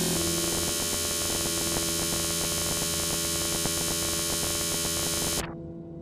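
Techno track: a dense, noisy synth drone over steady low tones, with fast stuttering clicks. About five seconds in, the high end cuts off suddenly, leaving a low hum that fades.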